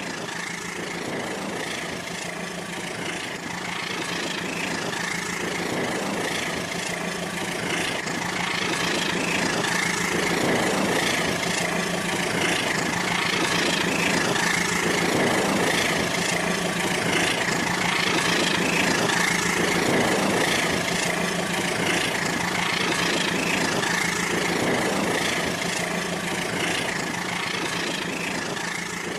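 Rail King toy train's small electric motor whining steadily as the train runs along its plastic track, swelling and fading about every two and a half seconds.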